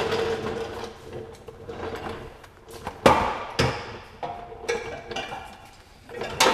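Casters of a rolling mechanic's seat rattling over a concrete floor, then a few sharp knocks and clatters as the seat is shoved in under a workbench. The rolling fades out within the first second; the loudest knocks come about three and three and a half seconds in.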